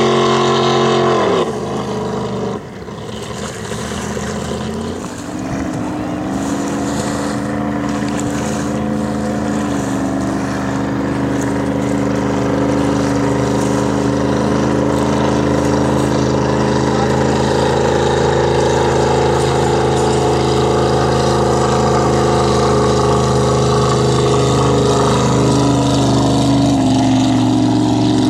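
Eliminator Daytona performance boat's engine running hard at speed. Its note drops about a second and a half in, then climbs back over the next few seconds and holds steady at high revs, stepping up slightly near the end.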